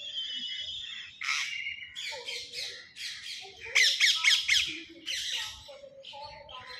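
Several birds calling over one another with squawks and chirps. In the middle comes a loud run of about five quick calls, each falling in pitch.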